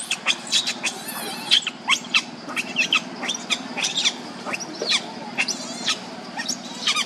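Infant pig-tailed macaque crying in a rapid string of short, high-pitched squeals, several a second.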